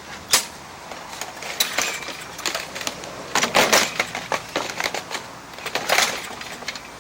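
Irregular sharp clicks and clattering of metal parts and hand tools being handled while working on the push mower, in several short clusters.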